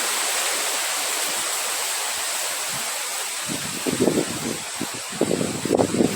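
Steady rushing wind with a constant hiss, and from about halfway through, irregular low gusts buffeting the microphone.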